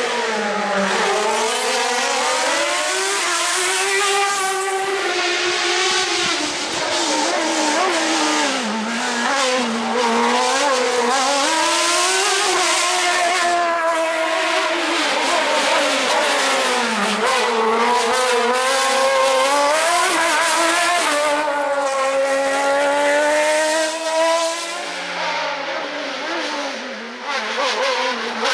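Suzuki-engined Fiat 126 race car driven flat out through a slalom, its engine revving high and dropping again and again as it brakes and accelerates between the cones. It falls quieter for a few seconds near the end.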